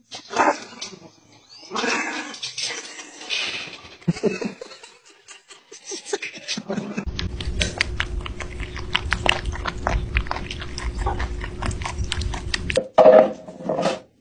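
A cat crunching dry kibble from a bowl, many quick crunches over a steady low rumble, then a single loud dog bark or yip near the end.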